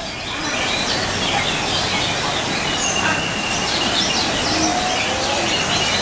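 Many caged competition songbirds singing at once, cucak ijo (greater green leafbirds) among them: a dense, unbroken chorus of overlapping whistles and chirps, with one longer whistle about three seconds in.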